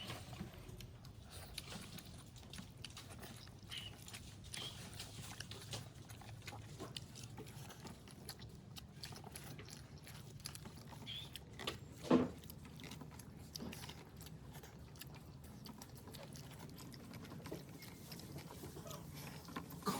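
Close eating sounds of people chewing and smacking their lips over egg curry and rice, with many small scattered clicks. One brief, louder sound stands out about twelve seconds in.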